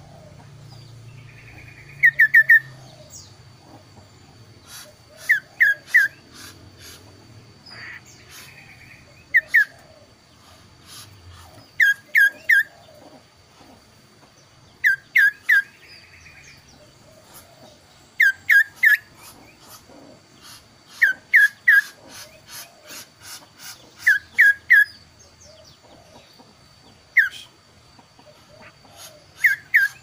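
Kaso-kaso bird singing: clear, whistled phrases of two to four quick notes, repeated every few seconds. A faint steady high tone runs underneath.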